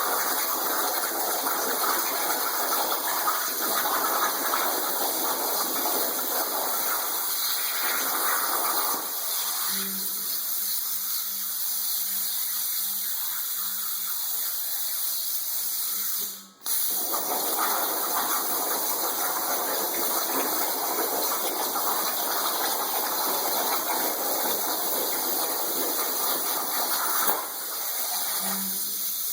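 Plasma torch cutting under water: a steady gushing hiss that stops about nine seconds in and again near the end, leaving a quieter, evenly pulsing low hum in between. The sound drops out suddenly for a moment in the middle.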